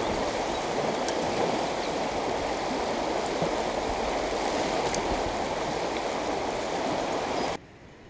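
Fast, shallow river water rushing over a stony riffle: a steady rushing noise that cuts off suddenly near the end.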